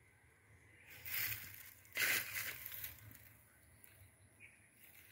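Crunching rustles of dry grass and weeds underfoot: two loud bursts, a short one about a second in and a longer, louder one a second later.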